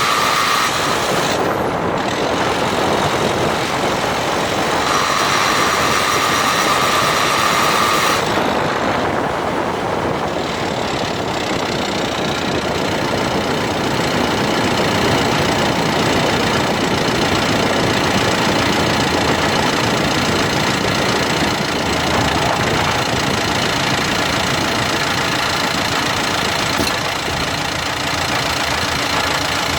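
A Dacia Duster's diesel driving, heard from inside the car, with steady engine and road noise. A steady high tone comes in for about three seconds, from about 5 to 8 seconds in. The car has a grinding noise under light acceleration in fifth or sixth gear between 1500 and 1800 rpm, which the owner suspects is a faulty drive shaft.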